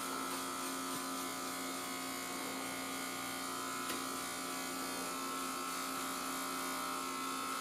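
Electric hair clipper buzzing steadily as its blade is run over a bald scalp, shaving the short stubble close.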